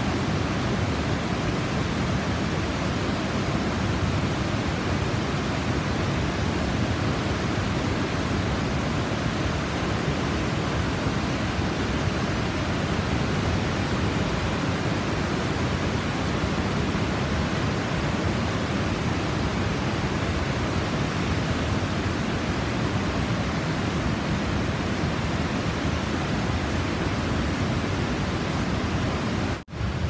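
Steady roar of the Mekong's white water pouring over the Khone Phapheng falls and rapids: a dense, even rush with no rhythm. It breaks off for an instant near the end and carries on.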